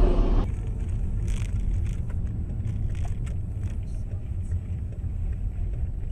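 Steady low road and engine rumble of a moving car, heard from inside the cabin, with faint scattered ticks. A louder rumble cuts off suddenly about half a second in.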